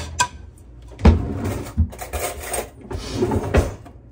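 A fork clinking and scraping on a metal baking sheet as breaded chicken tenders are lifted off it, with rustling and a few knocks; the loudest knock comes about a second in.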